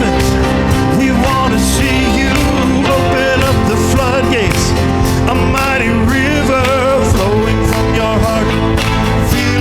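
A live worship band playing a full, steady arrangement with electric guitar, bass and drums, and a wavering melodic line on top.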